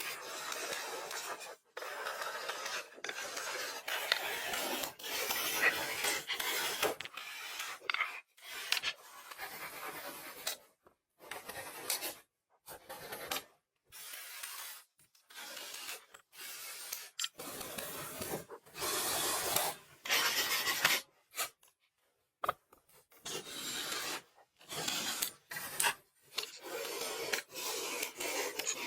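Rubbing and rasping on wood in repeated strokes, stopping and starting abruptly several times.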